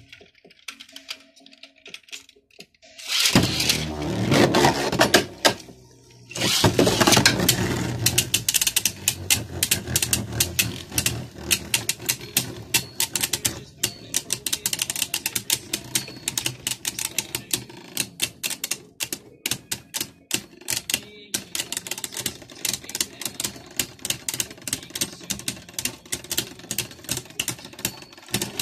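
Beyblade Burst spinning tops battling: a loud whirring rush a few seconds in, then a steady stream of rapid sharp clicks as the tops clash against each other and the plastic stadium.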